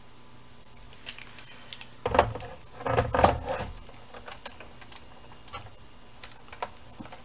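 Clicks and light clatters of a plastic blister pack holding a crank handle being handled and set down on a Sizzix Big Shot die-cutting machine, in two short clusters about two and three seconds in, with scattered light ticks afterwards.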